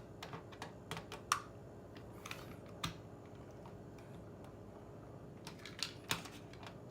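Scattered light clicks and taps of a star wrench being fitted and turned on the screw inside a refrigerator door handle, the sharpest about a second and a half in and two more near the end.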